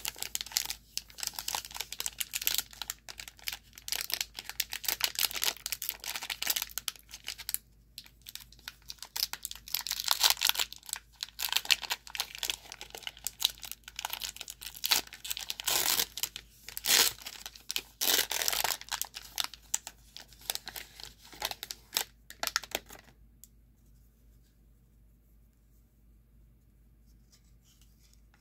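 Foil wrappers of baseball card packs being torn open and crinkled by hand, a rapid run of crackles and rips that stops about 23 seconds in.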